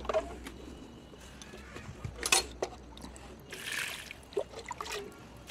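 Water splashing and trickling in short, irregular bursts, with one louder, sharp sound a little over two seconds in.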